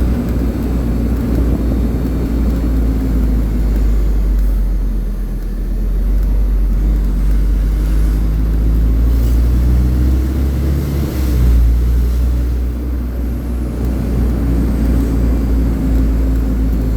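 Fire engine's diesel engine and road noise while driving, a deep steady rumble whose engine pitch shifts a few times as it changes speed.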